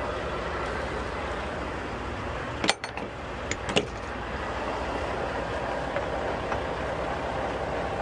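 Semi truck running, a steady low rumble, with two short sharp clicks about three and four seconds in.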